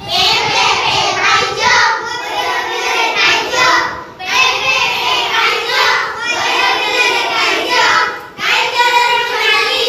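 A group of schoolchildren singing an Odia rhyme together, in short phrases with brief breaks about every two seconds.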